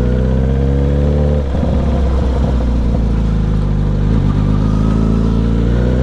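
Motorcycle engine running as the bike rides slowly, its pitch easing down over the first second or so. There is a brief dip and break around a second and a half in, then the engine settles and rises slowly in pitch near the end.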